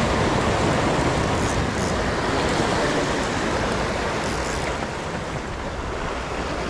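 Sea surf washing against the shore, a steady rushing noise with wind rumbling on the microphone, easing off slightly over the last few seconds.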